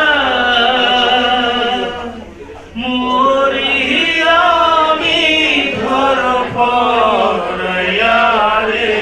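A man singing a Bengali song into a handheld microphone, holding long drawn-out notes, with a short break for breath about two seconds in before the next phrases.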